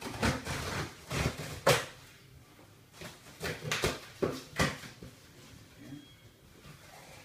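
Packing tape on a cardboard box being cut and torn, and the cardboard flaps being pulled open: a string of short scraping, tearing rasps in two bunches with a lull between.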